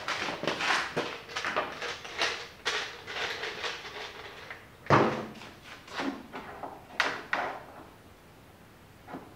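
Handling noises from hand wiring work: a run of rustles and light clicks, with a sharp knock about five seconds in and another about seven seconds in, then quieter.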